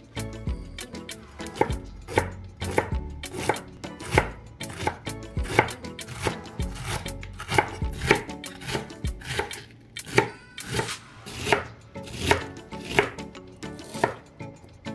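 A large kitchen knife finely shredding young cabbage on a bamboo cutting board: crisp cuts through the leaves, each ending in a knock of the blade on the board, about two strokes a second and somewhat uneven.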